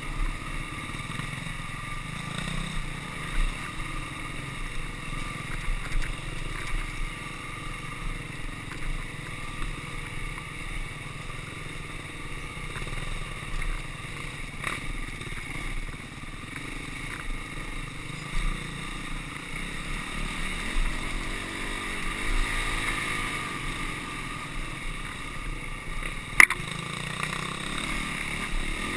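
Honda CRF250X dirt bike's single-cylinder four-stroke engine running steadily as the bike picks its way slowly over rocks and roots, with scattered knocks from the bike over the rough ground and one sharp knock near the end.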